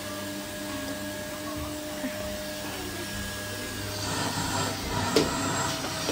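Vacuum cleaner running steadily. It grows louder about four seconds in, and there is a sharp knock about a second later.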